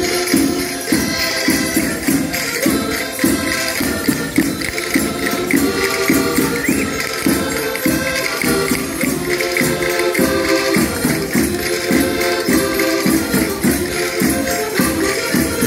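Portuguese folk rusga music: a button accordion playing the tune over a drum and tambourines keeping a steady, even beat, with voices singing together.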